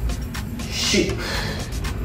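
Background music, with one short forceful breath out about a second in, the exhale on a crunch's way up.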